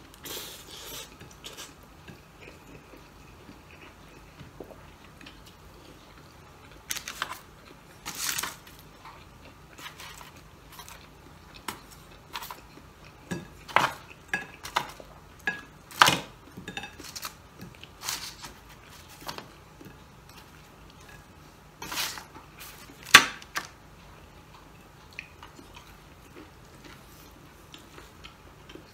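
Irregular clinks and taps of serving utensils against a plate and a tray of crispy pork adobo, with chewing between them. The clinks come in scattered clusters through the middle and are loudest in two short runs, the last a sharp clink about four-fifths of the way in.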